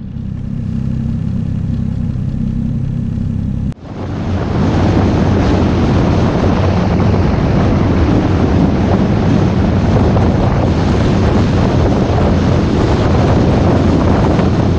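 Snowmobile engine running: a steady low hum at low speed for the first few seconds, then after a sudden break a louder, steady run at speed with wind rushing over the microphone.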